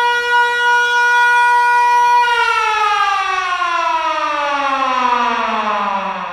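A siren holding one steady tone, then about two seconds in starting a slow, even slide down in pitch as it winds down, growing a little quieter near the end.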